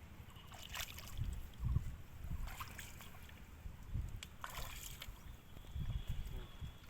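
Water sloshing and splashing, with three short splashes about a second and a half to two seconds apart, as the catfish net and catch are worked in shallow water.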